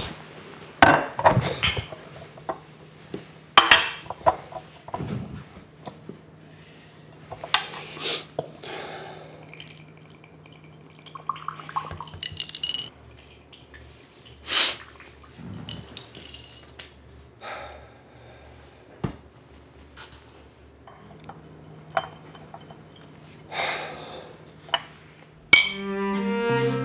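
Glass tumblers and a liquor bottle being handled: a run of separate clinks and knocks of glass set down on a hard tabletop, with liquor poured into a tumbler. Slow string music led by a cello comes in near the end.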